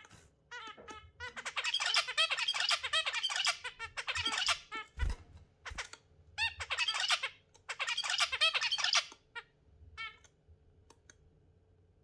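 Budgerigar chattering: bursts of fast, high chirps and squawks, four main runs of about one to two seconds each, with single chirps in between.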